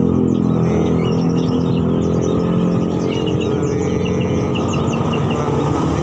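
A motor vehicle engine running steadily close by, with caged birds chirping over it; one bird gives a quick run of short repeated chirps in the second half.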